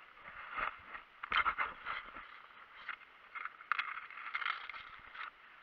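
Dry grass and clothing rustling and scraping against a body-worn camera in irregular bursts as the wearer shifts on the ground, with a few sharper clicks among them.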